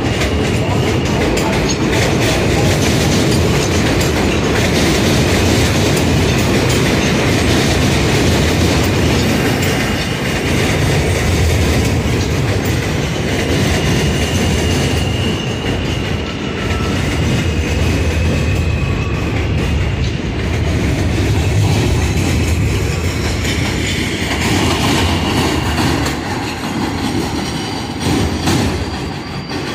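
New York City subway train on the elevated BMT Jamaica Line running through the station, a loud steady rumble with wheels clattering over the rail joints. A thin wheel squeal comes in about halfway through.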